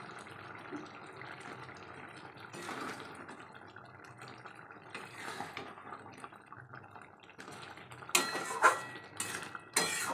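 Prawn curry gravy bubbling in a metal kadai while a spatula stirs it. Near the end the spatula scrapes against the pan three times, loudly.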